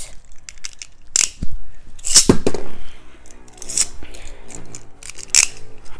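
Beyblade spinning tops launched into a plastic stadium: sharp clicks and a loud rasping burst from the launchers about two seconds in, then the tops spinning with a faint steady whir and knocking against each other and the stadium walls.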